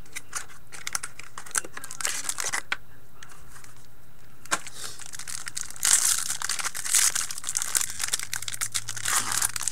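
Shiny foil wrapper of a hockey card pack being torn open and crinkled by hand. There are scattered clicks and rustles at first, then denser, louder crinkling from about six seconds in.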